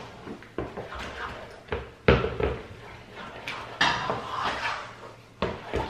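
Wooden spoon stirring thick cheese sauce in a frying pan, with scattered knocks and clatter of spoon and pan. The loudest knock comes about two seconds in.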